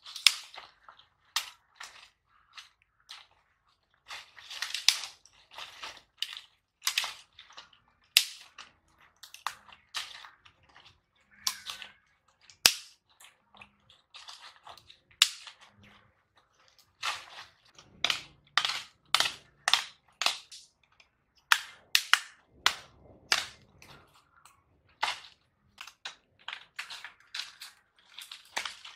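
Dry leaf litter crunching and dry twigs snapping: a run of sharp, irregular cracks, some in quick clusters.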